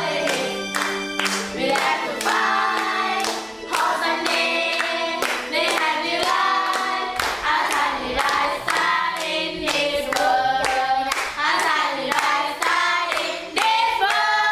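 Several voices singing a song together to steady rhythmic hand clapping.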